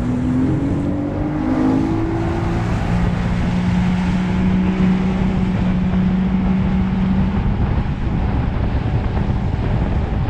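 Outboard motor on a small aluminium boat revving up over the first two or three seconds, then running steadily at speed under a constant rush of wind and water noise.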